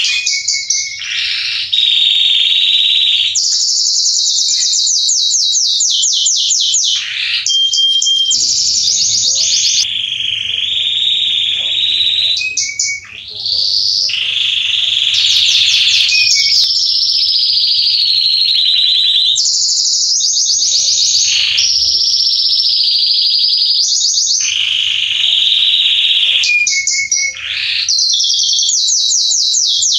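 Male Belgian canary singing a long, high-pitched song of fast trills, rolls and held tones, strung together almost without a break, with two short pauses.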